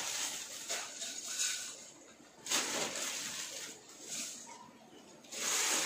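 Dry puffed rice poured from a plastic bag into a kadai, with the bag crinkling: a hissing rustle that comes in a few uneven surges, the last one near the end.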